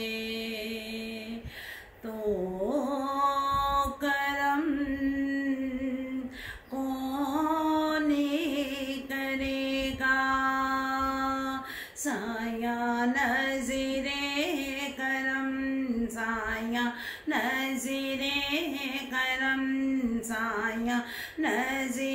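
A woman's solo voice singing a devotional naat, holding long notes with small wavering ornaments and slides between them, pausing briefly for breath every few seconds.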